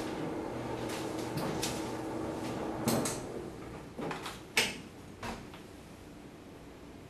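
Front-loading tumble dryer running with a steady hum that stops about three seconds in. A few clicks follow, then one sharp, loud click as its door latch is pulled open.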